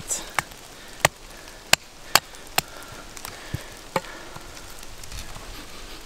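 Hatchet chopping and splitting resinous pine fatwood into kindling on a wooden chopping block: about seven sharp, irregularly spaced chops in the first four seconds.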